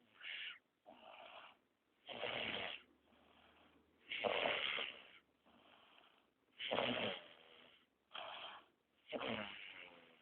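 Snoring: a series of loud snores every two seconds or so, with softer breaths between them.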